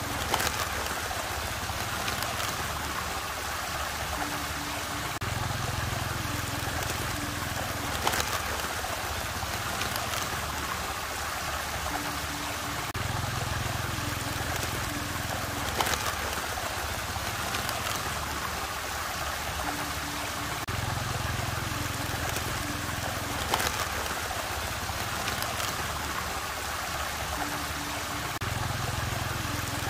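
Steady rush of swirling water from an artificial whirlpool, with a low hum that swells in for a couple of seconds about every eight seconds.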